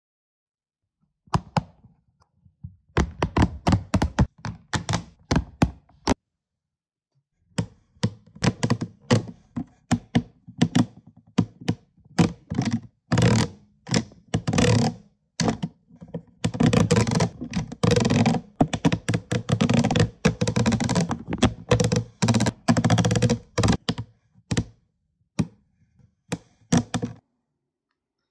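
Silicone suction cups on a hand-shaped fidget toy popping and smacking as they are pressed down and pulled off, in quick irregular runs of sharp pops, with a pause about six seconds in.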